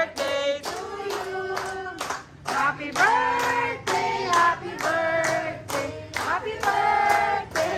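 A group of people singing a birthday song together with held notes, clapping steadily in time, about two claps a second.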